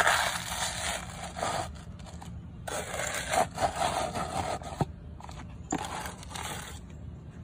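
Apple snail egg clutch being crushed and ground against concrete under a black block: a gritty scraping in three strokes with short pauses between, starting with a sharp crunch.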